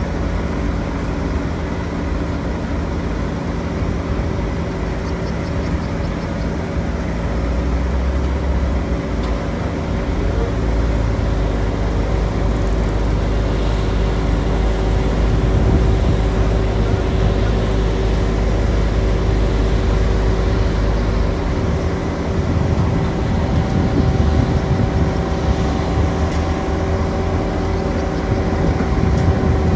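Heavy engines of road-construction machinery running steadily: a low rumble with a steady hum, growing louder about ten seconds in.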